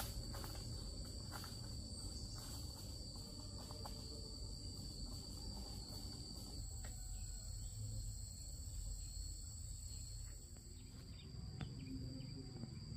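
Insects calling in a steady, unbroken high-pitched drone, over a low steady rumble.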